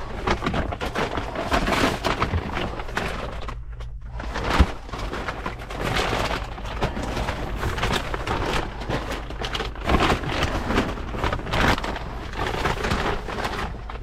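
Close scraping, rustling and small knocks of someone crawling through a dirt crawlspace, over a steady low hum, with one sharper knock a little past a third of the way in.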